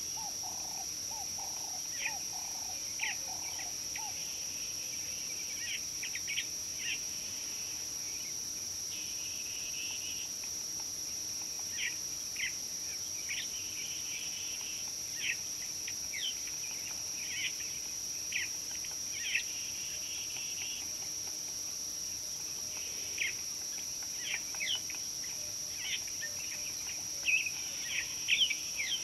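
Wild birds calling with short, sharp chirps throughout, busier near the end, over a steady high-pitched insect drone. A lower warbling bird call sounds in the first few seconds.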